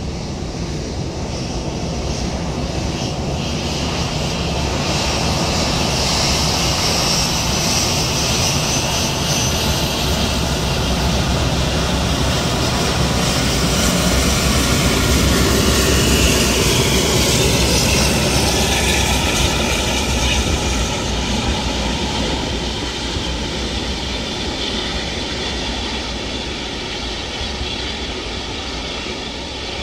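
Airbus A380-800 taxiing on its four turbofan engines at taxi power. The engine noise builds as the jet passes close by about halfway through, its whine falling in pitch, then fades as it moves away.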